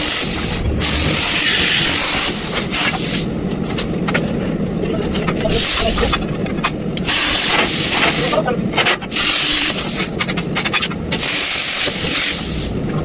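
Plasma cutter cutting iron: a loud, rough hiss of the arc and air jet, with a low rumble beneath. The hiss breaks off for moments several times and starts again.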